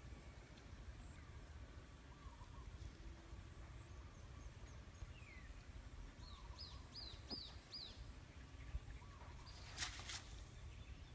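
Faint birdsong over a low outdoor rumble. A single falling whistle is followed by a quick run of about five short, high chirps. A sharp click comes near the end.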